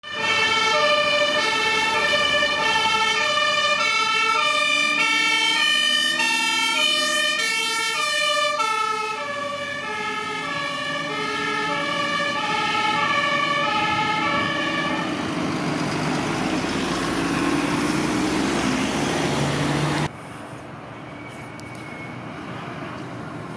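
Fire engine's two-tone siren alternating between a high and a low note about once a second, shifting slightly lower partway through as the truck passes. It then fades into engine and tyre noise. About 20 s in it cuts off abruptly to a quieter street background.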